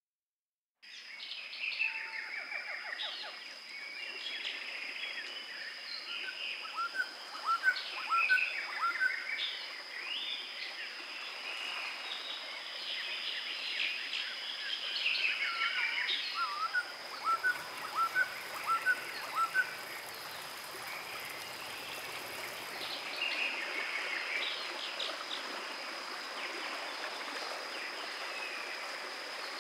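Several songbirds singing at once, with a loud run of five or six short rising notes twice, about seven and seventeen seconds in, over a steady high-pitched tone. It begins after about a second of silence.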